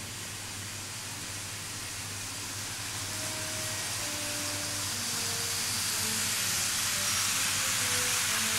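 Model electric train running on its track, a steady hissing whir that grows gradually louder as it nears. Faint music plays underneath.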